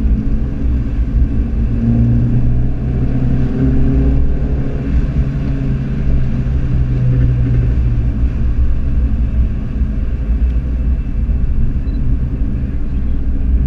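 Car engine running at a steady cruise with tyre and road rumble, heard from inside the cabin; the engine note is a little stronger for a few seconds mid-way.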